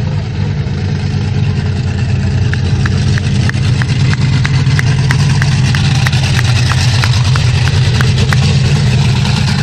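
Bigfoot monster truck engine running steadily at low revs, growing louder as the truck drives up close. Through the middle there is a rapid light ticking, about four ticks a second.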